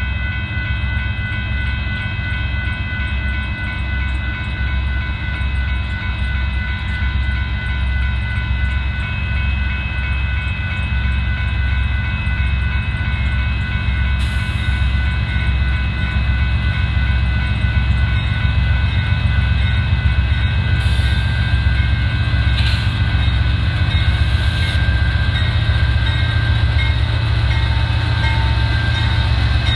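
Railroad crossing warning bells ringing steadily over the low rumble of an approaching diesel freight train, which grows louder as a Union Pacific locomotive reaches the crossing near the end.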